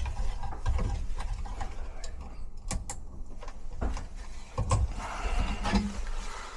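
Gloved hands working the wiring of an air handler's control board, fitting a new spade terminal onto a wire. The sound is scattered small clicks and rustles, with two sharp clicks a little under halfway through and a few dull knocks after.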